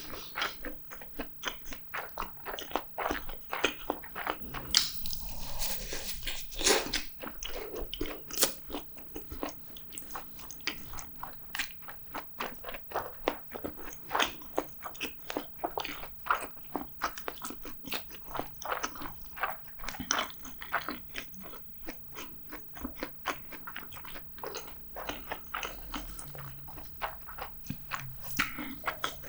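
A person chewing food close to the microphone: a rapid run of small wet clicks and crunches, with a longer noisy stretch about five to seven seconds in.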